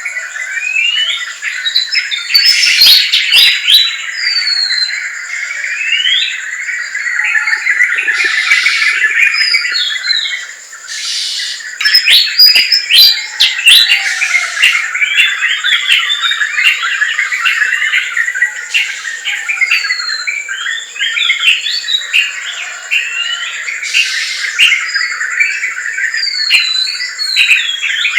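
Dense forest dawn-chorus-style birdsong: many birds chirping, whistling and calling over one another without pause, with a steady high-pitched thin tone running underneath.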